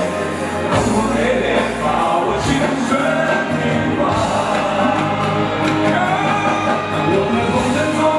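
A man singing into a handheld microphone over backing music, his voice amplified and carried through without a break.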